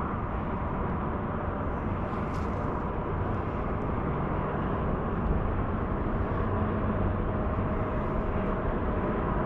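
A steady low rumble with a faint hum in it and no distinct events.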